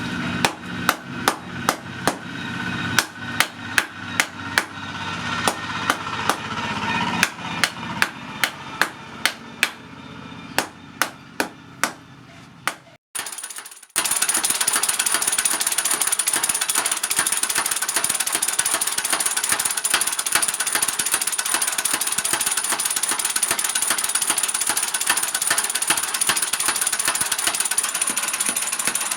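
Steel being struck with a hammer on an anvil, sharp ringing blows at about two a second over a low hum. About halfway through this gives way abruptly to a power tool working metal, a dense steady crackle with a high whine.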